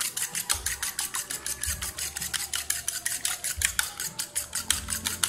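A fork whisking beaten eggs in a plastic bowl: quick, even clicks of the fork against the bowl, about eight strokes a second.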